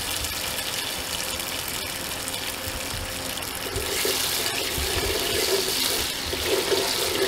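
Hot cooking oil with salt sizzling steadily in a non-stick pot. From about four seconds in, a wooden spatula stirs the salt through the oil, scraping the pot, and the sizzle gets brighter.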